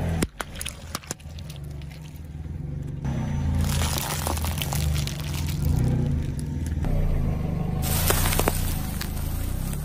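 Car tyre crushing a row of objects over a low steady engine hum: sharp pops in the first second as water balloons burst, crackling crunches around the middle as foil-wrapped chocolates are flattened, and a rustling crunch near the end as a stack of cardboard is pressed down.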